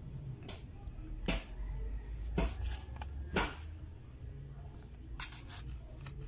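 Short clicks and rustles of a flat flex ribbon cable, its pins covered with scotch tape, being handled and lined up with its connector on a TV's T-con board: about one click a second with a quick cluster near the end, over a low steady hum.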